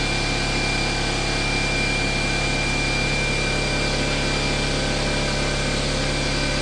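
Fortress 27-gallon air compressor running steadily while filling its tank, a constant hum with a thin high whine over it.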